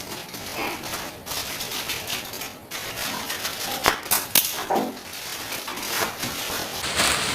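Delivery packaging being cut and torn open by hand: irregular crinkling and rustling with sharp snaps and clicks, the two sharpest about four seconds in.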